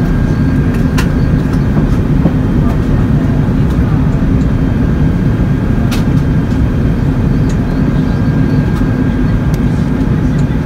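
Airbus A380 cabin noise in flight, heard from a window seat over the wing: a steady, loud rumble of the jet engines and airflow, with a faint steady whine and a few light clicks.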